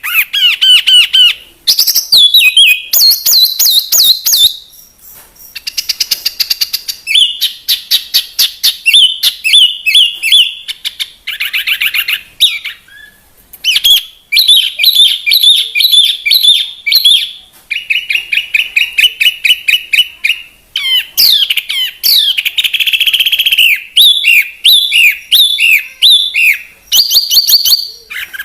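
Bird song: a continuous, varied run of rapid chirps and trills, phrase after phrase with only short breaks.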